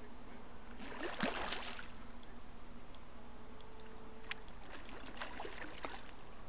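Water splashing as a hooked small carp thrashes at the surface while being played: one louder splash about a second in, then a few smaller splashes.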